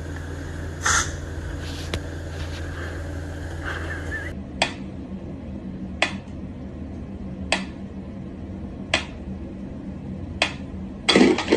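Mechanical pendulum metronome ticking slowly, one sharp tick about every one and a half seconds, after a few seconds of steady low hum. Near the end comes a louder knock, the loudest sound here, followed by two quicker clicks.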